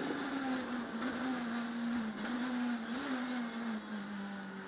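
Ford Fiesta S2000 rally car's naturally aspirated four-cylinder engine at speed, heard from inside the cabin. Its note dips and picks up again twice in the middle, then settles slightly lower near the end.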